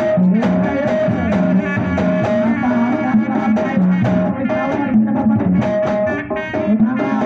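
Sundanese kendang pencak music: kendang drums beating a steady, even pattern of short pitched strokes, with a melody line bending over the top, accompanying pencak silat.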